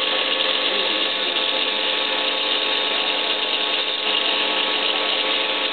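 Small electric bench-top tile saw running steadily, its motor whining at a constant pitch while a tile is fed through the blade.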